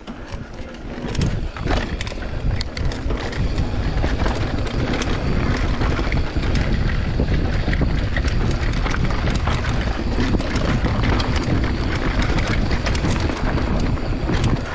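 Wind buffeting the microphone while riding a Giant Trance 27.5 mountain bike fast down a dirt trail, with the tyres rolling over the ground and the bike clattering over bumps.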